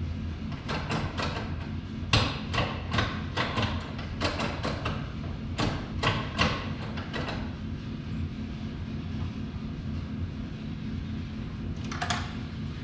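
Irregular sharp clacks and knocks from hand work on a car, coming several to the second for the first half of the stretch, then one more near the end, over a steady low hum.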